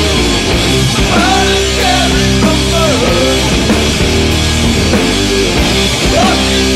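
Rock music with a sung vocal over distorted guitars and a steady drum beat.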